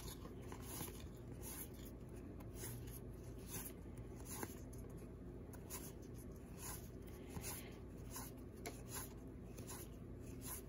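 2013 Panini Hometown Heroes baseball cards being flipped one at a time from one hand to the other: faint, papery slides and light ticks of card stock, about two a second.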